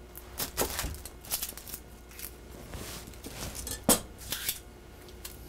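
Dry, papery onion skin crackling and tearing as it is peeled by hand off a cut onion quarter, in small irregular crackles. One sharper knock about four seconds in.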